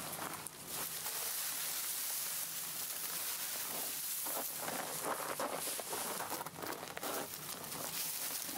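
Dry dead grass rustling and crackling as it is grabbed by hand and piled onto a cart, with boots crunching on wet snow; the rustle grows busier about halfway through.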